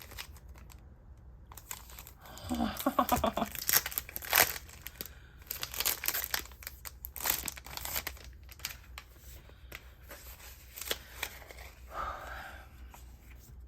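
Packaging crinkling and tearing as it is pulled open by hand, in a string of irregular rustles, with a short vocal sound about two and a half seconds in.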